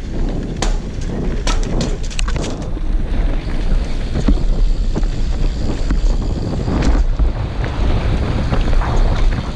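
Wind buffeting the microphone of a mountain bike's action camera as it rides fast down a dirt trail, with a constant low rumble and sharp rattles and clacks from the bike going over bumps, a quick run of them in the first few seconds and another near the end.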